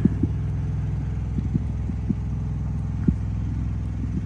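An engine running steadily with a low, even hum, with scattered footsteps on asphalt over it.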